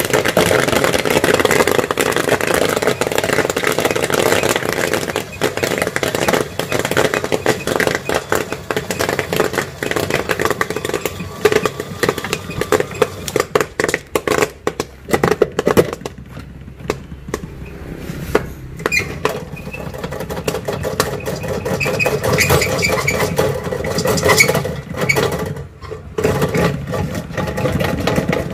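Popcorn machine running a batch: kernels popping in the kettle as a rapid crackle of pops over a steady mechanical hum, the popping thinning out after about halfway.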